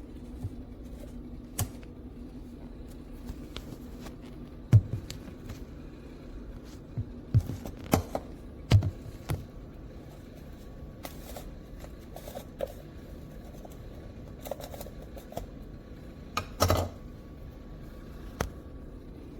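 Scattered clicks and knocks of plastic parts being handled, over a steady low hum, with a cluster of knocks midway and a louder double knock near the end.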